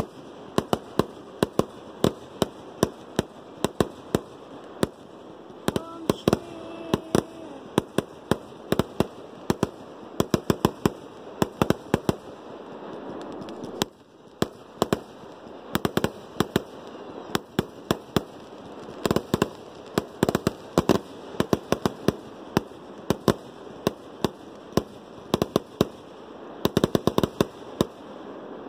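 Consumer aerial fireworks going off in a rapid series of sharp cracks and bangs, several a second, with a brief lull about halfway through before the firing picks up again.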